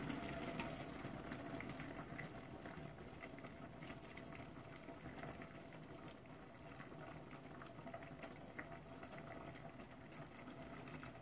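Ramen broth bubbling faintly in a stainless steel pot on an induction hob, a steady simmer with small scattered ticks.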